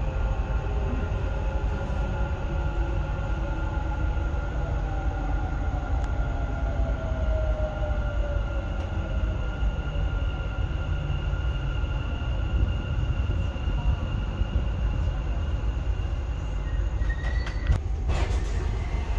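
Dubai Metro driverless train running, heard inside the car: a steady low rumble under several whining tones, some of them sliding down in pitch as the train slows. Near the end come a short high tone and a few sharp clicks.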